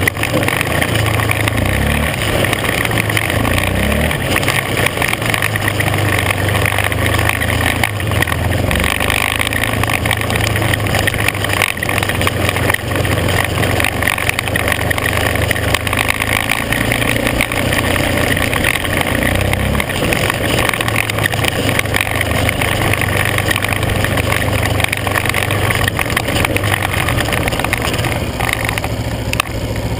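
Engine of a small off-road vehicle running steadily while riding a dirt road, its note shifting slightly a couple of times, over continuous road and wind noise.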